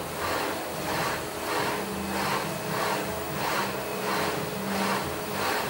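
Abdominal crunch machine rocked back and forth with momentum, the swinging misuse of the machine, giving a rhythmic swish of its moving frame about three times every two seconds.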